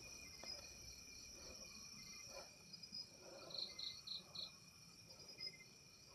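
Crickets trilling steadily at night. Short chirps repeat every second and a half or so, and a run of four louder chirps comes near the middle. The sound is faint.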